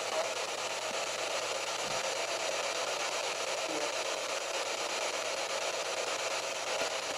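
Steady hiss of radio static from a ghost-hunting spirit box, a sweeping radio, played through a small external speaker.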